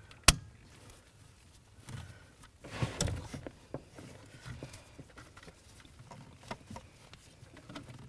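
A plastic wiring connector snaps onto a brake light switch with one sharp click, followed by gloved hands handling the switch and its wiring: soft rustles and small plastic clicks.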